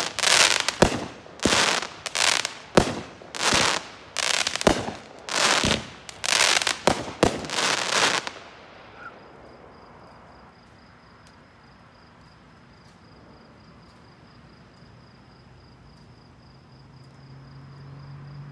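Consumer aerial fireworks bursting in a rapid series of sharp reports, about two a second, the last shots of the fused show, stopping about eight seconds in. After that only a faint steady high trill remains.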